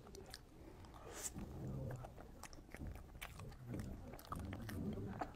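Close-miked chewing of soft xue mei niang (cream-filled mochi), with many short wet mouth clicks and smacks.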